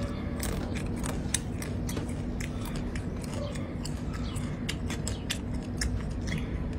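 Close-miked eating of rice mixed by hand: chewing with many sharp, irregular mouth clicks and smacks, over a steady low hum.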